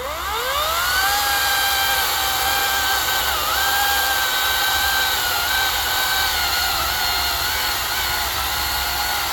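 Ego CS1800 cordless battery chainsaw running a Husqvarna X-Cut chain, spinning up over the first second and then cutting through oak with a steady electric whine. About three and a half seconds in, the whine dips briefly in pitch as the motor takes load.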